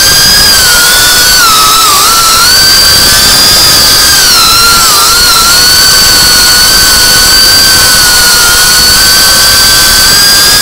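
FPV quadcopter's brushless motors whining at high speed, heard through the drone's onboard camera. The pitch holds mostly steady, dipping briefly about two and five seconds in as the throttle eases, over a steady rush of air noise.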